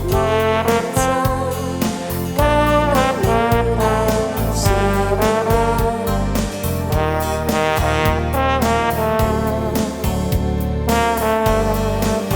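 Instrumental pop music: a brass-like lead melody over a steady drum beat and bass.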